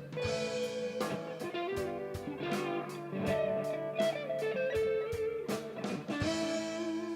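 Guitar music, with electric guitar playing sustained notes over a steady beat.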